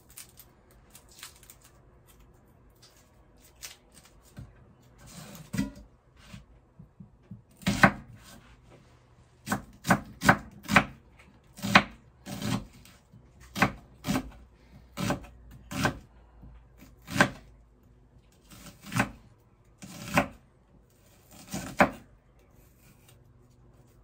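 Knife chopping a red onion on a wooden cutting board. The blade strikes the board in single sharp knocks at an uneven pace, a few faint ones at first, then a louder run of about sixteen from about a third of the way in.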